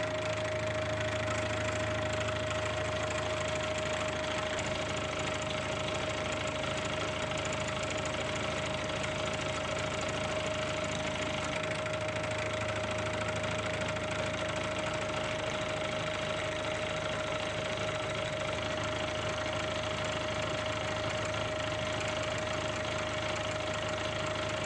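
Vertical milling machine running a two-flute high-speed-steel end mill that is cutting a slot in a steel block: a steady machine sound with one constant whine over the noise of the cut.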